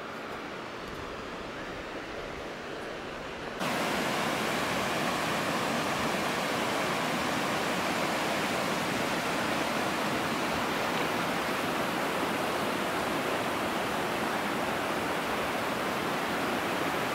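River rapids rushing over rocks and stones, a steady rush of water. A little over three seconds in it jumps abruptly to a louder, fuller rush, nearer the rapids.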